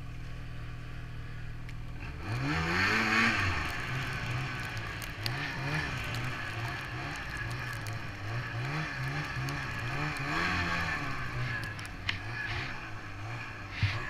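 Ski-Doo Summit 800 E-TEC two-stroke snowmobile engine running steadily, revving up about two seconds in, then rising and falling in pitch over and over as the throttle is worked through deep powder.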